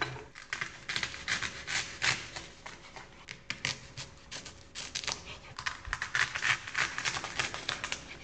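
A dull kitchen knife cutting through leek stalks on a cutting board: an irregular run of short cutting strokes and knocks on the board.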